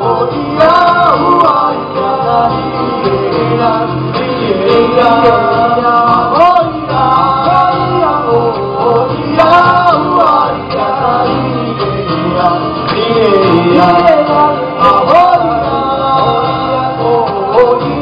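Live band music: male voices singing together over acoustic guitar and upright double bass.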